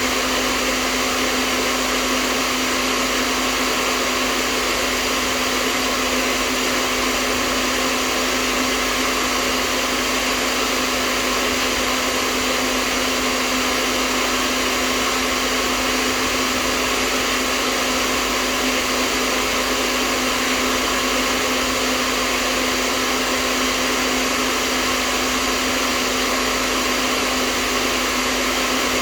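Electric hair dryer running continuously at a steady speed: an even blowing hiss with a constant motor hum underneath, played as white noise for sleep.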